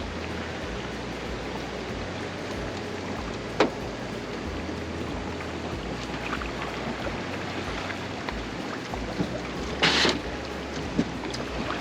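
Steady wash of water and wind noise on a boat out on a lake, with a sharp knock about three and a half seconds in and a brief louder rush of noise near the end.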